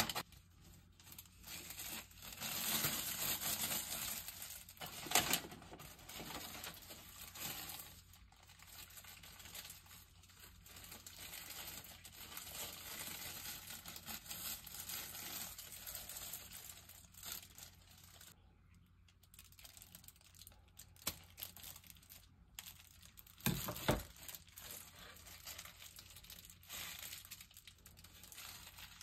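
Packaging being handled and torn open: irregular crinkling and rustling with a few sharp clicks and knocks, the loudest about five seconds in and again near the end.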